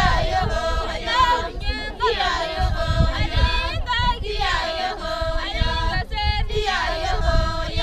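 A group of Maasai women singing together unaccompanied, several voices in close harmony, in phrases of about two seconds with short breaks between.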